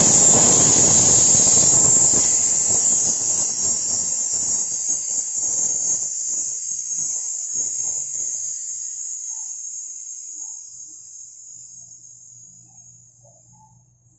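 Leak-test pressure being released from a repaired chest freezer's refrigeration system through the manifold gauge set: a loud rush of escaping gas that fades steadily to almost nothing as the system empties.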